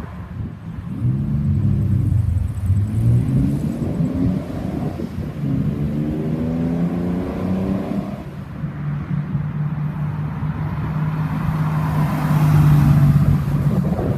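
Car engine accelerating, its note climbing through two gears with a shift between, then settling into a steady drone that swells near the end.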